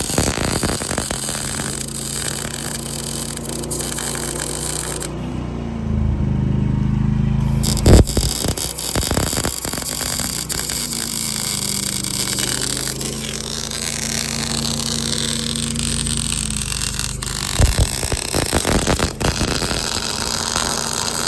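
Small wire-feed welder arc crackling steadily as weld beads are run on steel, with a couple of sharp knocks, one near the start and one about eight seconds in.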